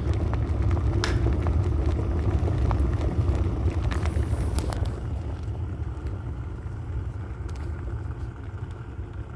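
Electric kettle rumbling as the water comes to the boil, the sound fading over the second half as the boil dies down after the kettle switches off.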